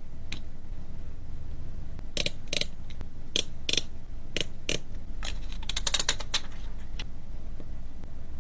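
Small tools and phone parts clicking and tapping during a phone repair: about a dozen sharp clicks, bunched in the middle, over a low steady hum.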